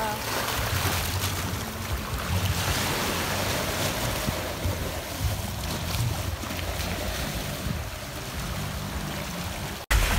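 Small waves washing over a rocky shore, with wind rumbling on the microphone. The sound cuts out for an instant near the end.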